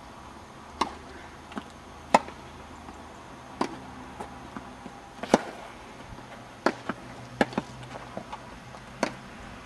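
Tennis rally: sharp pops of racket strings striking the ball, with softer ball bounces in between, about a dozen hits in all, the loudest a little after two seconds and just after five seconds in.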